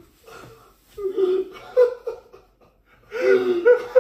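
A woman laughing in two bouts, one about a second in and a louder one near the end, with breathy pauses between.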